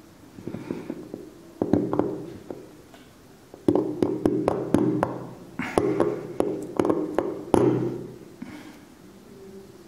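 Seal-carving knife cutting into a soft seal stone: runs of rapid, sharp scraping clicks as chips break away, loudest from about four to eight seconds in.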